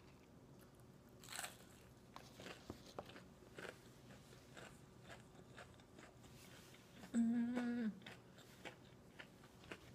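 A person chewing crunchy fried food close to the microphone, with scattered small crunches and wet mouth clicks. About seven seconds in comes a short closed-mouth "mmm" of enjoyment, the loudest sound in the stretch.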